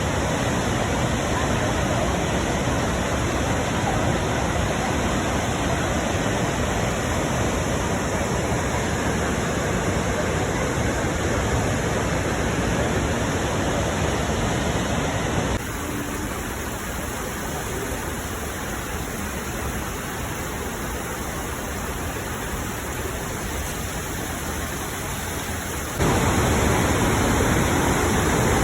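Steady rushing of a large waterfall, the Krimml Waterfalls. The level drops suddenly about halfway through and comes back louder near the end.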